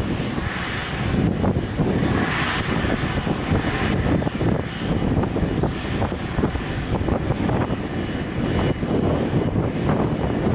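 Large jet airliner landing: its engines give a steady, loud noise with a faint high whine running through it.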